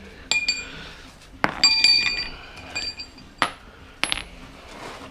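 Metal tools and parts clinking and knocking together in a series of sharp strikes, several with a brief bright ring.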